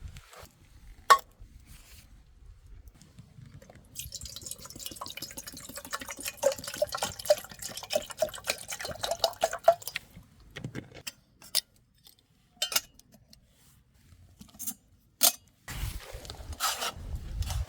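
Liquid poured and gurgling for about six seconds, among separate clinks and knocks of camp cookware.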